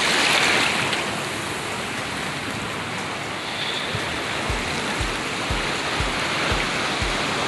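Shallow surf washing over sand and pebbles at the water's edge, loudest in the first second as the wave rushes in, then a steady swirl. About halfway through, a low, regular thump comes in, about twice a second.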